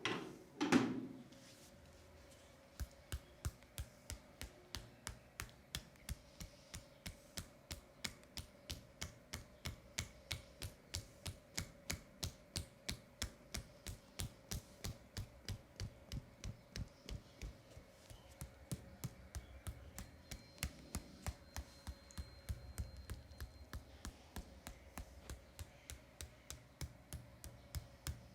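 Rhythmic percussive tapping massage on a person's leg, about two to three light taps a second, steady over a faint hum, after a louder brief knock in the first second.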